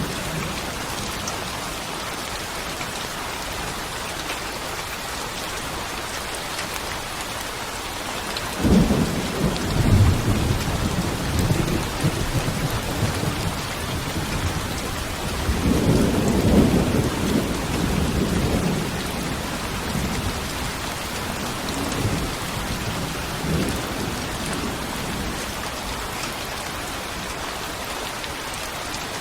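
Steady rain hissing, with rolls of low thunder: one starting about nine seconds in, a louder, longer one a little past the middle, and two weaker rumbles after it.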